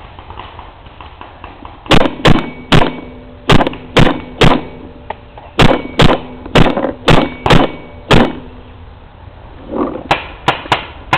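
Paintball marker firing close by: about a dozen single shots over six seconds, then a quicker string of shots near the end.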